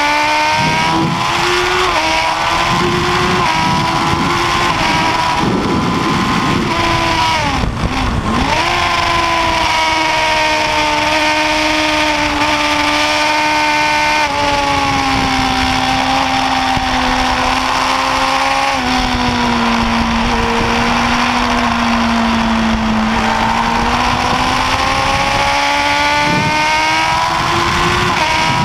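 Kawasaki ZX-10R's inline-four engine at high revs, heard from an onboard camera with wind rushing over the microphone. The pitch climbs under acceleration and steps down at each gear change, dropping sharply about eight seconds in before climbing again.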